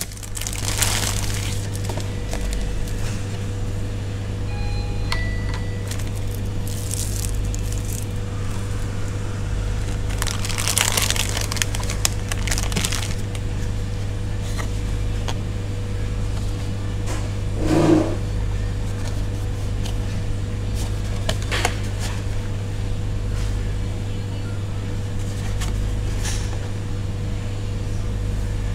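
Plastic wrapping crinkling and a folding cardboard noodle pot being handled and opened out, in several short bursts over a steady low hum.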